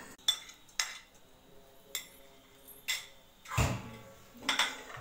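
A metal spoon clinking against a plate and the kadai while cumin seeds are spooned into hot oil: about six sharp, irregular taps, the one about three and a half seconds in heavier, with a dull knock.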